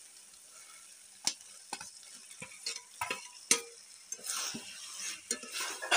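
Spatula knocking and scraping against a metal kadhai as fried potato and pointed-gourd pieces are tipped into sizzling masala and stirred in. Sharp knocks start about a second in, and the frying hiss swells near the middle.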